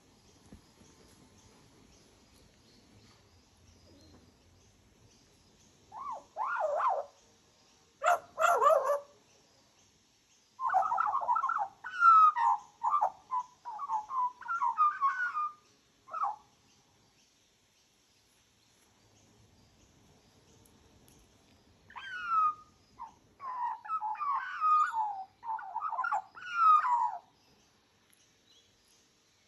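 Australian magpie singing in short warbling phrases: one run starting about six seconds in, a pause, then a second run about two-thirds of the way through.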